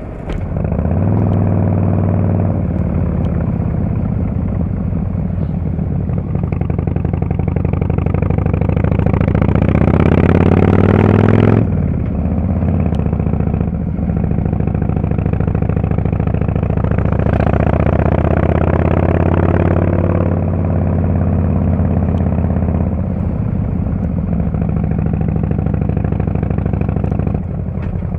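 Harley-Davidson Fatboy S's Screamin' Eagle Twin Cam 110 V-twin running through a Kesstech valved exhaust. It pulls up through the revs for about ten seconds and backs off sharply, then climbs again briefly and backs off, and settles to a steady run.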